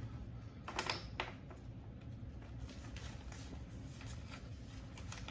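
Paper, photo prints and envelopes being handled on a wooden table: light rustling and clicky taps, with a cluster of sharper clicks about a second in.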